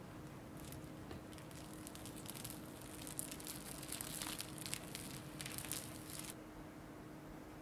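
Plastic cling film crinkling as it is peeled off proofed dough balls on a baking tray. The crackling goes on for about six seconds and stops before the end.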